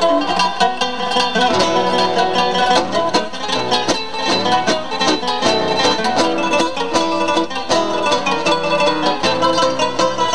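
Two acoustic guitars playing a tango as a duet, a quick run of plucked notes over a steady accompaniment.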